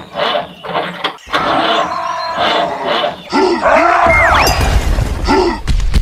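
Edited-in cartoon sound effects: choppy, pitch-bending noise for the first few seconds, then sliding whistle-like glides and a loud low rumble in the second half.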